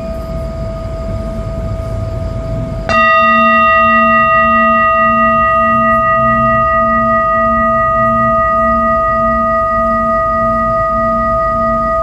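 Large singing bowl ringing with a steady tone. About three seconds in it is struck again and rings out louder, its low hum pulsing slowly, about twice a second, as it slowly fades.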